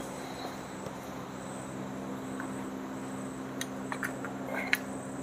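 A few light clicks and taps from hand work on parts during piston fitting, over a steady low hum.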